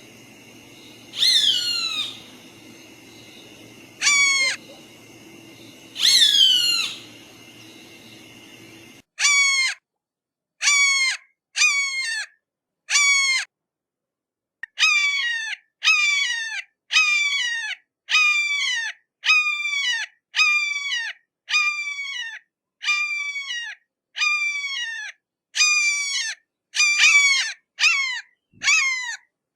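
Hawk screaming: harsh cries, each sliding downward in pitch. Three spaced cries sound over a low steady background hum, then a cut, then a run of cries at about one a second.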